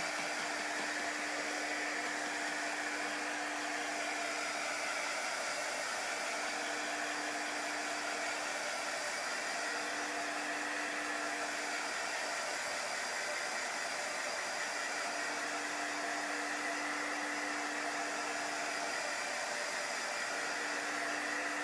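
Handheld embossing heat gun running steadily, blowing hot air to dry chalk paste: an even rush of air over a steady motor hum.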